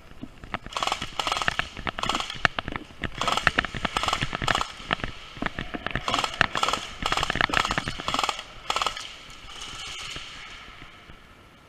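Airsoft guns firing full-auto: a string of short bursts of rapid clicking shots over about eight seconds, dying away near the end.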